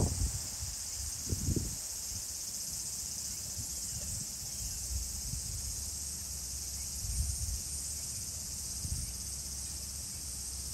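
Steady, unbroken high-pitched chorus of insects such as crickets, with a few soft low rustles near the start.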